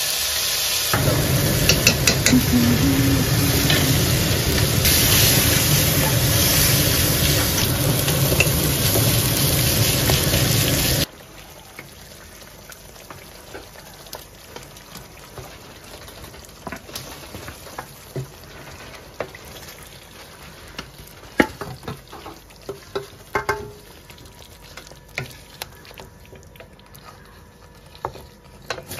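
Chicken shahi korma frying in hot oil in a pan: a loud, steady sizzle that cuts off suddenly about eleven seconds in. After it, much quieter scattered clinks and scrapes of a spatula stirring in the pan.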